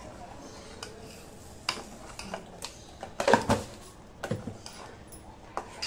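A steel spoon scraping and clinking against the inside of a stainless steel pot while stirring sugar into milk, in irregular knocks with the loudest cluster a little past halfway.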